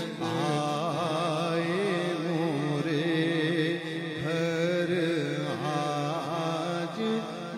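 A solo male voice sings a naat in a wavering, richly ornamented line, with short breaks between phrases, over a steady low drone.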